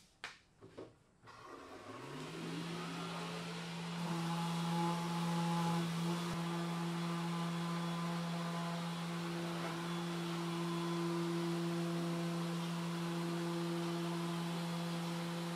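A few light knocks, then an electric motor starts up. Its hum rises in pitch for about a second and then runs steady.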